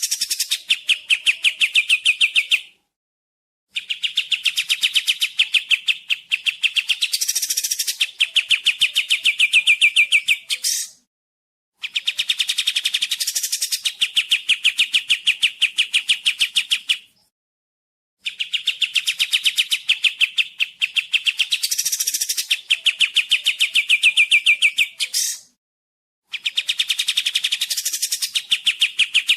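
Kapas tembak bird singing: long, fast trills of rapid, evenly repeated notes in phrases several seconds long, broken by short pauses.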